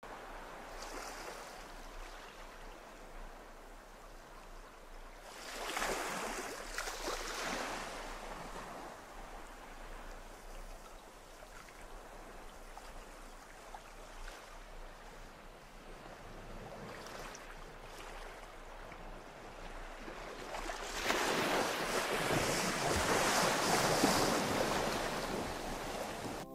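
Sea waves washing in and drawing back, with two larger surges, one around six seconds in and a longer one from about twenty-one seconds, each swelling and fading.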